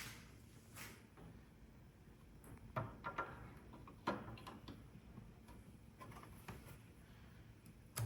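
Scattered light clicks and knocks of a 3.5-inch hard drive and a drive enclosure being handled, with a small cluster of taps a few seconds in.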